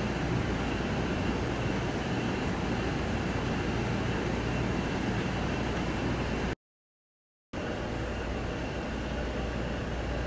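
Steady running noise with a low hum inside an Amtrak Coast Starlight passenger coach car. It cuts out completely for about a second just past the middle, then resumes the same.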